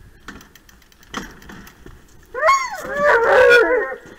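Alaskan malamutes howling and yelping excitedly, several overlapping rising-and-falling cries that start a little over two seconds in. A few faint clicks and knocks come before them.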